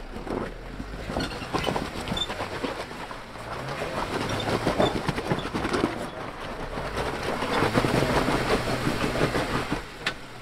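Off-road 4x4's engine running low while its tyres crunch and clatter over rock and gravel on a trail, revving up about three seconds in. The crunching grows louder twice.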